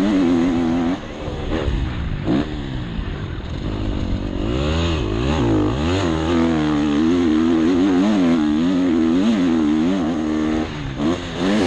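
Motocross bike engine revving up and down while being ridden hard, its pitch rising and falling with throttle and gear changes. The revs drop off briefly about a second in and again near the end.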